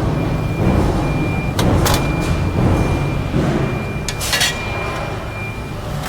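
Press brake machine running with a heavy low hum and a thin steady high whine, with a few sharp metallic clicks and knocks as it works, the hum easing off near the end.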